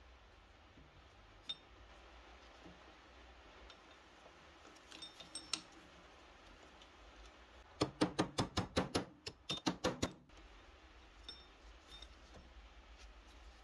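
Small metal parts of a Roulomat Senior 60 coin-counting machine clinking as they are handled. About eight seconds in comes a quick run of sharp metal clicks, about six a second for two seconds, as the mechanism is turned.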